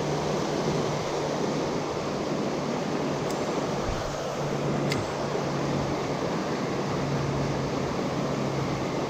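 Fast river current rushing through white-water rapids: a steady rush of water.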